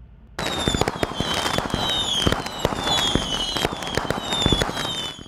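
Fireworks-like sound effect for an animated video outro: dense crackling and popping with short falling whistles repeating about every half second. It starts abruptly about half a second in and cuts off suddenly.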